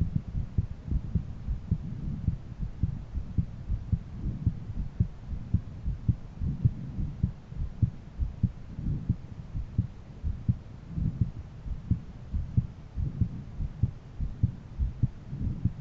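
A man's heartbeat heard through a stethoscope on the chest: a regular beat of short, low thumps over a faint low hum.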